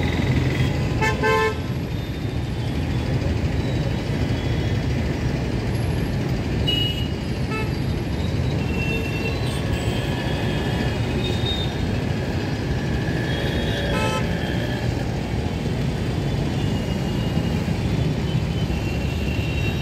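Steady rumble of busy road traffic at a city intersection, with motor-vehicle horns honking several times; the clearest horn blasts come about a second in and again around fourteen seconds.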